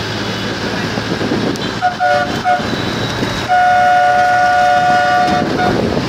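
A vehicle horn gives three short toots about two seconds in, then one long blast of about two seconds, over the steady rumble of a moving vehicle in traffic.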